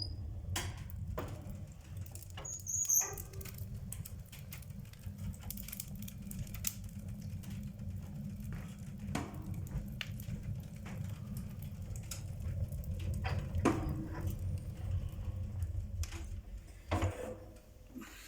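Wood fire burning in a stove-fireplace: a steady low rumble with many scattered crackles and clicks, fading near the end.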